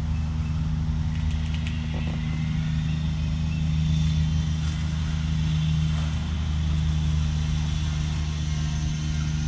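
Gas pressure washer's single-cylinder Honda engine running steadily, a constant low hum that holds one pitch.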